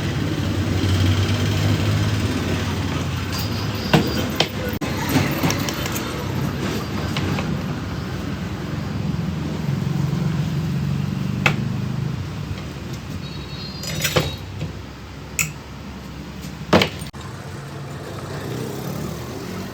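Low, steady rumble of a motor vehicle engine, with about half a dozen short, sharp knocks or clicks spread through it.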